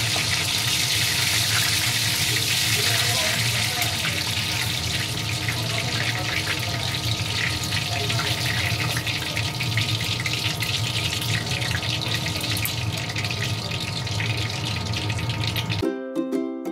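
Hot oil sizzling and crackling in a wok as rice-paper shrimp spring rolls deep-fry, with a steady low hum underneath. Near the end the frying cuts off and ukulele music starts.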